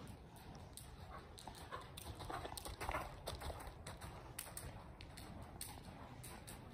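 Morgan horse trotting on soft indoor arena footing: muffled, irregular hoofbeats, with a louder brief sound about three seconds in.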